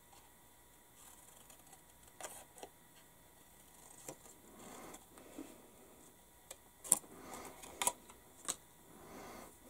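Faint, scattered small clicks and taps of tools and small objects being handled on a hobby workbench, about six of them with the sharpest near the middle, with some soft rustling between.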